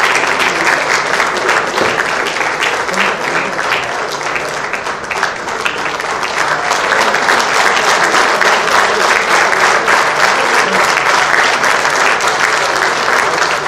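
Audience applauding steadily, the clapping easing a little about a third of the way in and then building again.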